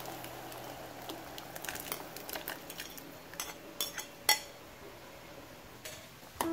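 Tapioca pearls tipped from a bowl into a pot of boiling water, with a run of clinks and taps from the bowl and a utensil against the aluminium pot. The sharpest clink comes about four seconds in.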